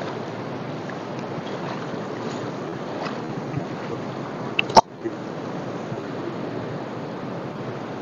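Fast, shallow mountain river rushing over rocks, a steady rushing noise. A single sharp click a little under five seconds in.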